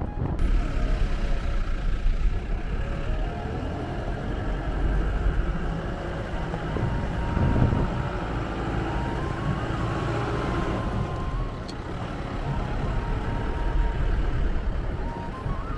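A car driving along a road: a steady low engine and road rumble, with the engine note shifting up and down.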